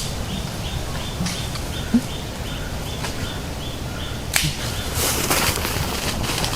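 A short high chirp repeating about three times a second, with a sharp knock about two seconds in, another about four seconds in, and a burst of rustling noise near the end.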